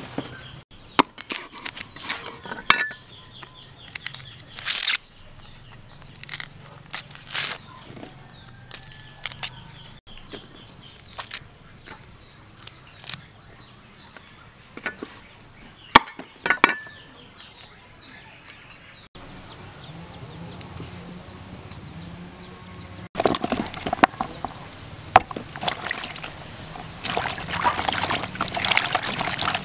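Husks being torn and snapped off ears of green corn: irregular sharp rips and cracks. From about 23 seconds in, hands swish and splash peeled baby corn around in a basin of water.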